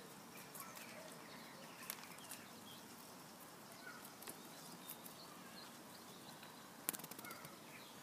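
Quiet outdoor ambience with faint, distant bird chirps now and then, and a few sharp clicks, the loudest a quick cluster about seven seconds in.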